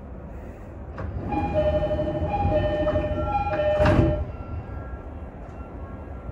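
Level-crossing warning alarm ringing in two alternating tones, growing louder from about a second in and cutting off sharply at about four seconds as the train passes it. Under it runs the steady rumble of the Sotetsu Izumino Line electric train.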